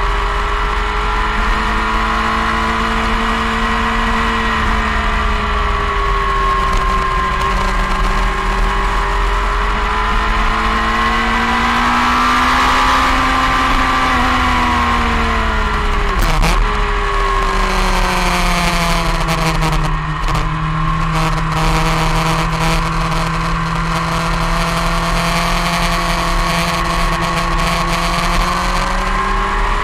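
Onboard sound of a motorcycle at speed on a race track: engine running hard with its pitch slowly rising and falling through corners, under a constant rush of wind. About halfway through, the engine note peaks on the straight, then drops sharply as the bike slows for a corner, and settles to a lower steady note.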